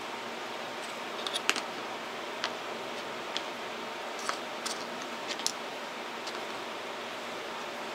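Light clicks and taps of small flashlight mounts being set down and shifted on a cutting mat, about nine in all, scattered irregularly, over a steady background hiss.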